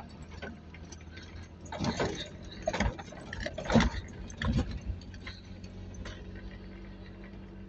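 Pickup truck driving slowly over a rough dirt track: a steady low engine hum with several loud rattling knocks from the jolting body in the first five seconds, then smoother running.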